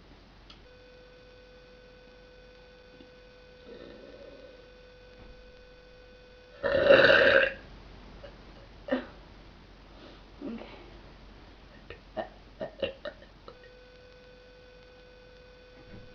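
A girl's single short, loud burp about seven seconds in, forced on command without soda. A few small clicks follow.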